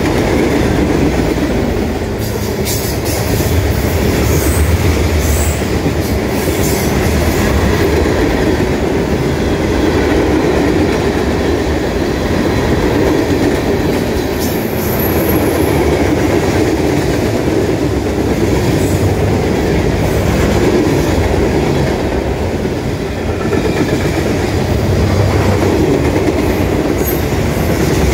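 Freight cars of a Norfolk Southern mixed freight train (boxcars, covered hoppers and tank cars) rolling past close by: a steady loud rumble and clatter of steel wheels on the rails, with a few brief high wheel squeals and clanks now and then.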